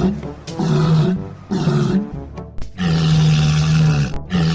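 Low animal calls over background music: three short calls, then two long, steady held calls.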